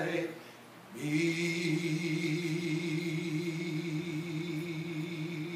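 A man's unaccompanied singing voice trails off, then about a second in holds one long low note with a slow, even vibrato.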